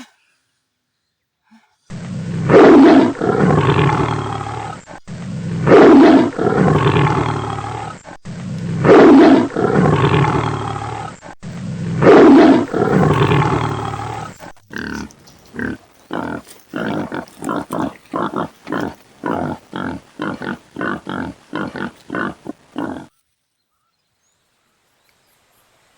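A lion's roar as a sound effect: four loud, identical long roars, then a run of short grunts, about two a second, that fade out.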